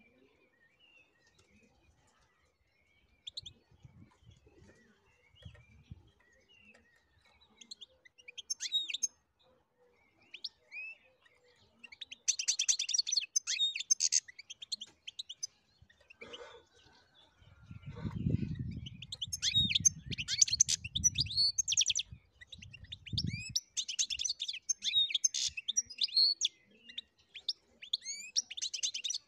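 European goldfinch singing: at first a few scattered short calls, then from about twelve seconds in, repeated bursts of fast, high twittering song phrases. A low rumble sounds under the song for several seconds midway.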